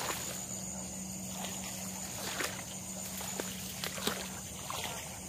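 Someone moving through wet reeds: scattered rustles, clicks and soft sloshing, over a steady high-pitched drone and a low hum.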